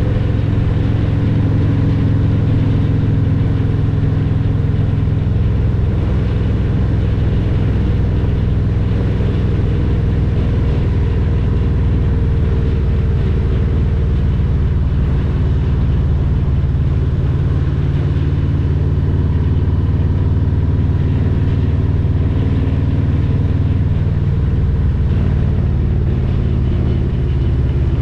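Harley-Davidson Milwaukee-Eight 114 V-twin running through a Vance & Hines Power Duals header and Cobra Neighbor Hater slip-on mufflers, pulling the bike along at a fairly steady cruise. The exhaust note shifts a little in pitch, with a brief dip in level near the end.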